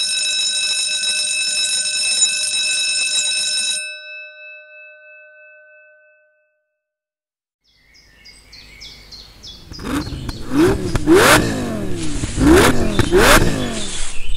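A steady ringing tone of several pitches cuts off about four seconds in, with a few pitches fading away. After a short silence, a car sound effect builds up, with repeated rising revs in the last few seconds.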